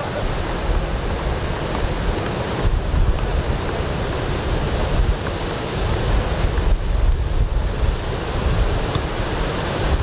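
Ocean surf from a typhoon swell washing onto a sandy beach in a steady roar, with wind gusting against the microphone several times.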